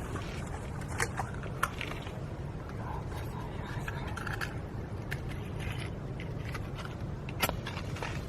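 Scraping and handling noises with a few sharp clicks, loudest about a second in, near two seconds in and near the end, over a steady low background rumble.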